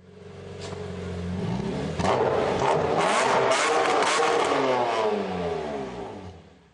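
Intro sound effect like a car engine: a steady drone that swells up, then, after a sharp crack about two seconds in, sweeps down in pitch through several crackles and fades out.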